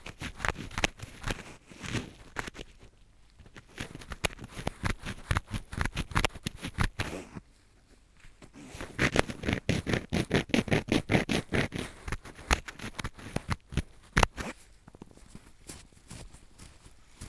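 Close-miked ear cleaning with an earpick: rapid, irregular scratching and rubbing strokes inside the ear. The strokes thin out briefly about halfway through, then come densest and loudest for a few seconds.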